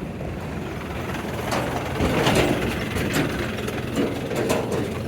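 A motor vehicle engine running with a steady low rumble, with a cluster of sharp knocks and rattles from about two seconds in.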